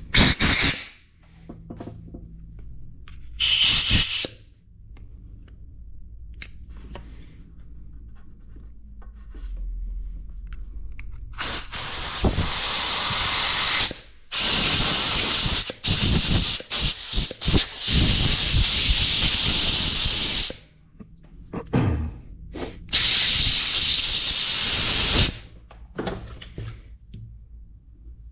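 Pressurized spray hissing from a nozzle in three long bursts, the middle one about six seconds with brief breaks, while the carburetor is being cleaned. A few short clatters of handling come in the first seconds.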